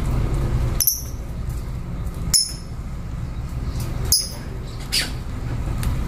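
Lovebirds giving about four short, sharp, high-pitched chirps, over a steady low rumble.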